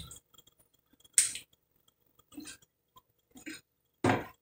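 Kitchen knife pushed down through a chicken's breastbone on a plastic cutting board: four short cutting sounds, about a second apart.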